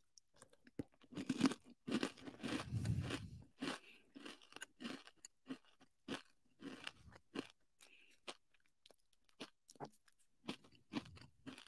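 Close-miked crunching and chewing of a crunchy Kodiak Cakes snack. The crunches are loudest in the first few seconds, then thin out into quieter, scattered chews.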